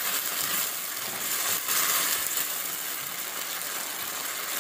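Marinated chicken strips sizzling in hot oil in a karahi, a steady hiss, while a spatula stirs them with a couple of light scrapes.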